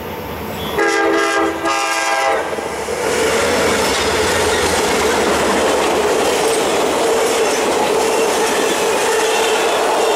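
Passenger train led by EMD FP9A diesel locomotives sounds its air horn for about a second and a half, starting about a second in. Then the passenger cars roll past close by, their wheels clattering on the rails under a steady high tone.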